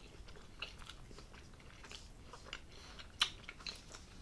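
Two people chewing hot dogs in buns: faint, scattered wet mouth clicks, with one sharper click about three seconds in.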